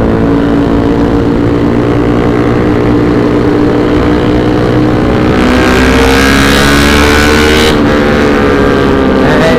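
Motorcycle engine running steadily on the move, heard from the rider's own bike, its pitch drifting gently up and down. From about five seconds in to nearly eight seconds in, a louder rushing noise rises over it.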